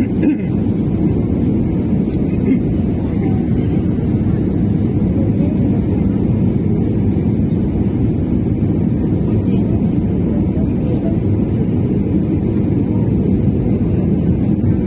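Steady low rumble of engines and rushing air inside a passenger airliner's cabin, on the approach before landing.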